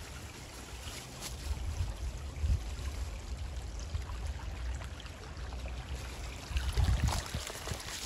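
A small forest stream babbling steadily, with a low rumble that comes and goes underneath.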